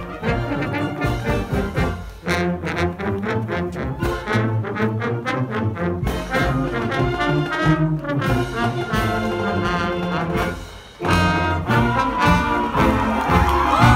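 Marching band brass section playing a tune while parading: trumpets, mellophones and sousaphones. The music dips briefly about eleven seconds in, then comes back louder.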